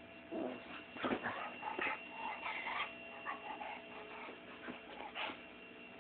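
Small dog whimpering and yipping in short, irregular bursts.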